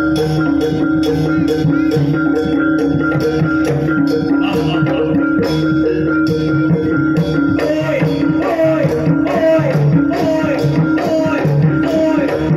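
Traditional Javanese jaranan (kuda lumping) music accompanying the dance: steady, evenly spaced drumming and percussion over a held tone. About halfway through, a repeating melodic figure that bends up and down in pitch joins in.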